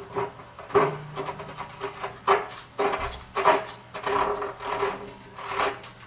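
Gloved hand scraping and rubbing crud out of an electric water heater's element opening: a string of irregular scraping strokes, roughly one or two a second.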